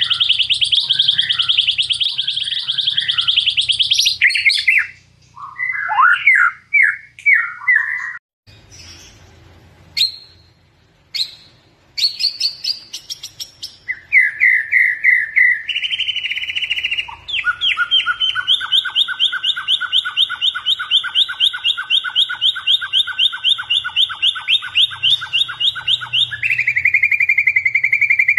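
White-rumped shama singing: a fast trill at the start, then a run of varied short whistled phrases, a quieter stretch with a few sharp notes, and from about halfway on long, very rapid trills in two pitches held for many seconds.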